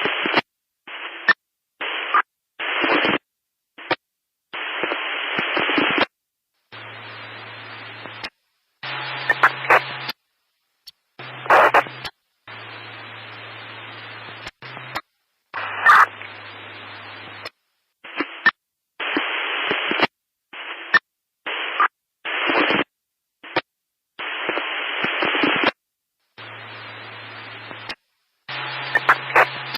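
Thin static hiss, like a radio between stations, cutting in and out in abrupt chunks with dead-silent gaps between them. Some quieter stretches have a low steady hum under the hiss, and sharp crackles pop out here and there.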